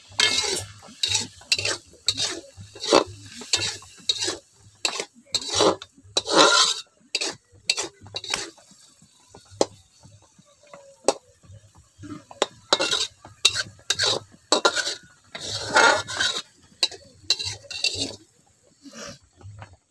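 Flat metal spatula scraping and knocking against a metal kadai as it stirs chopped tomatoes into frying curry masala, in irregular strokes with short pauses between them.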